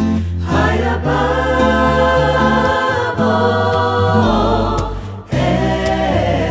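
Music of a choir singing in held notes, the chords changing every second or so, with a brief break about five seconds in.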